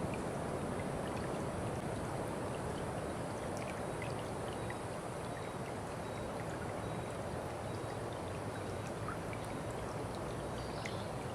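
A stream of water running steadily, with small faint ticks of splashing scattered through it.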